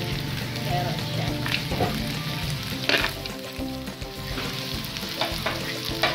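Meat, onion and carrot sizzling as they are stir-fried in a metal wok, with a metal spatula scraping and clanking against the pan several times, loudest about three seconds in.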